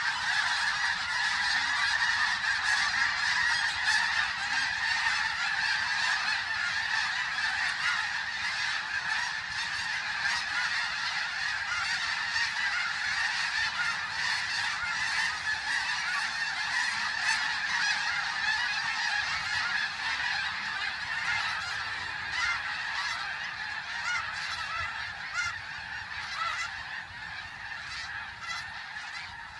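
A large flock of snow geese, many of them in flight, calling together in a dense, continuous clamour of overlapping honks. The din eases off gradually over the last several seconds.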